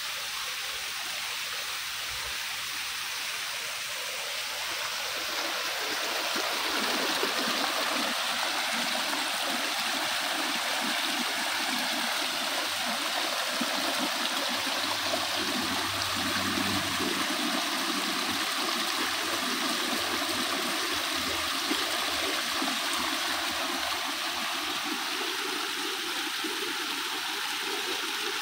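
Water spilling over mossy rocks in a small cascade: a steady rush and splash with trickling. It grows louder about six seconds in.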